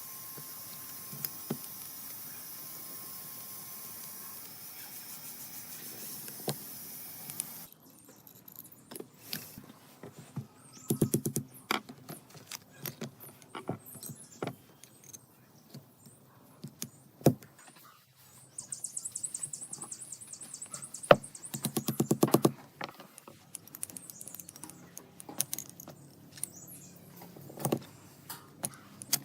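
Hand-tool work on parts: a steady hiss that cuts off suddenly, then scattered sharp clicks and knocks with two short runs of rapid, even clicking.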